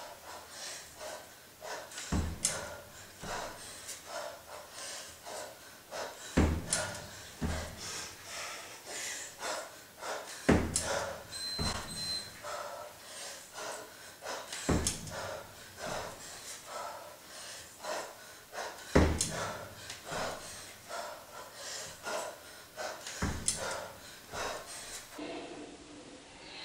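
One-arm kettlebell long cycle reps on a rubber mat. A heavy thud comes about every four seconds, once per rep, with lighter knocks and rustles of the lifter's movement between them.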